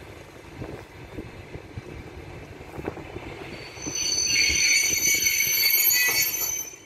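Passenger train coaches rolling slowly into a station with a low rumble and faint knocks. About four seconds in, a loud high-pitched squeal of several steady tones sets in, the brakes squealing as the train slows to a stop. The squeal cuts off suddenly just before the end.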